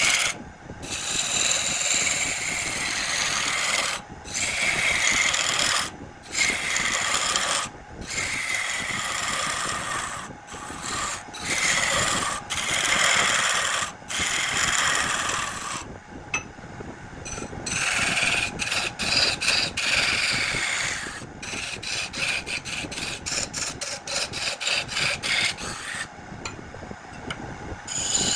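A tool working a piece of jackfruit wood spinning on a lathe, making a rasping hiss in repeated passes a second or two long with short breaks between them. Near the end the passes turn into a quick run of short strokes.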